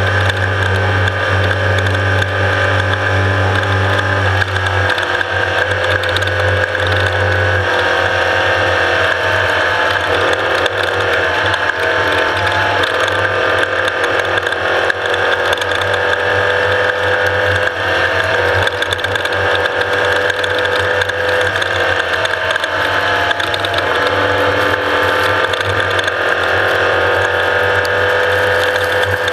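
Off-road race vehicle's engine and gearbox running at speed: a steady whine that drifts up and down in pitch over a dense mechanical rattle.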